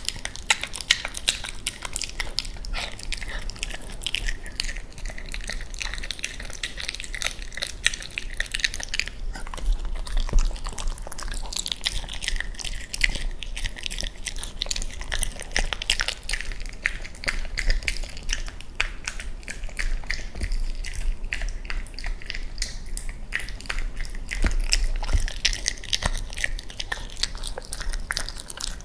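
A Cavalier King Charles Spaniel chewing and crunching through raw chicken, bones included, in many quick bites packed close together.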